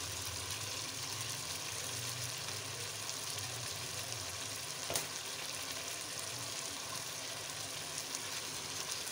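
Chicken pieces frying in oil in a wok, a steady sizzle, with a single light click about five seconds in.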